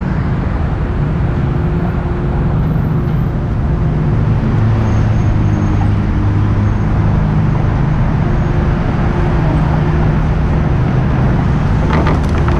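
Steady road traffic noise: passing cars and the sustained low hum of vehicle engines, with a few sharp ticks near the end.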